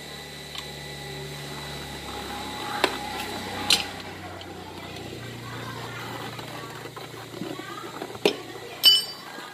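Hands working a tubeless tyre onto a motorcycle's alloy wheel rim, with handling and rubbing sounds and a few sharp knocks. Near the end comes a ringing metal clink. A low steady hum runs underneath.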